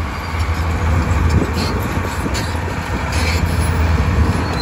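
Crawler bulldozer's diesel engine running under load as the machine pushes dirt across a slope, a steady low drone with the noise of the tracks over it.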